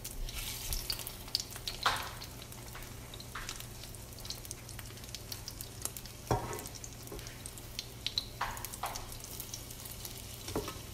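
Egg-dipped bread sandwiches frying in oil in an electric skillet, a steady light sizzle. A spatula knocks and scrapes against the pan as the sandwiches are turned, with the clearest knocks about two seconds in and just after six seconds.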